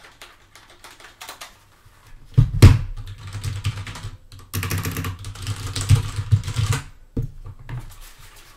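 Mechanical keyboard with Cherry MX Red switches being handled: scattered clicks, a heavy thump about two and a half seconds in, then a couple of seconds of rapid key clacking.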